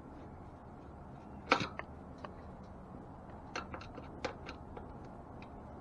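Spokes, nipples and tools being handled on a bicycle wheel during spoke replacement: a few sharp clicks and taps, one loud click about a second and a half in and a loose run of smaller ones later.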